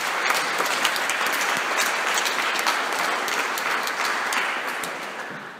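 Audience applauding: dense, even clapping that begins at once and fades away over the last second or so.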